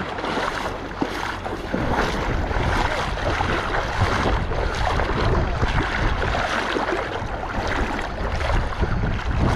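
Shallow seawater sloshing and lapping right against the microphone, with wind noise on the mic.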